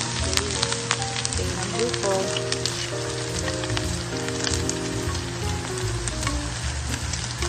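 Chopped pork belly sizzling and crackling in a hot frying pan as it is stirred with a wooden spatula. Background music with a melody plays over it.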